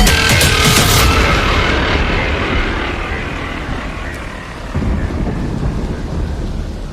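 The electronic track's last chord fades out over the first two seconds, leaving a low rolling rumble of thunder that dies down and then swells again about two-thirds of the way in.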